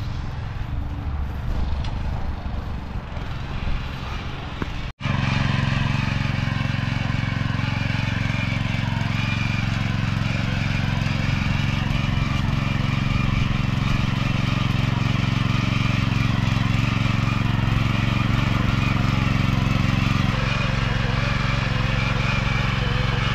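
STIHL MH 700 petrol rotary tiller running steadily under load as its tines churn the soil. The engine drops out for a moment about five seconds in, then comes back louder and closer.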